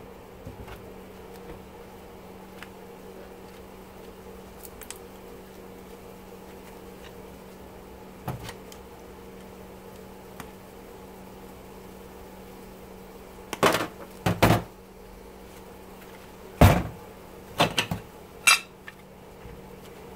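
Metal parts of a dishwasher motor being handled and set down on a steel workbench: a few sharp clanks and knocks, mostly in the second half, the loudest about three quarters of the way in. A steady low hum runs underneath.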